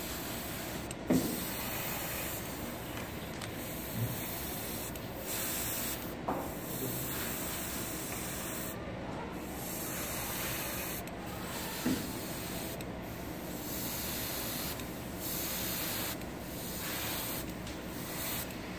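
Airbrush spraying paint onto a small resin model part: a steady hiss of air and paint that stops briefly every second or two as the trigger is let off. A few faint knocks are heard.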